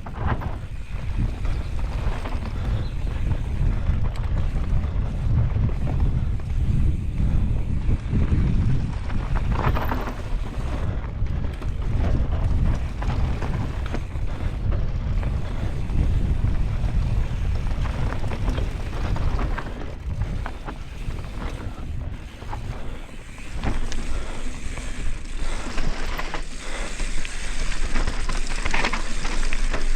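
Mountain bike ridden fast downhill over rough ground: wind buffeting the microphone, with the bike clattering and rattling continually. It eases for a moment just after twenty seconds in.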